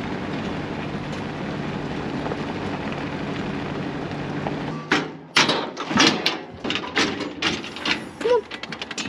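A ute's engine running steadily. About five seconds in it stops abruptly, and a quick run of sharp knocks and clatters follows.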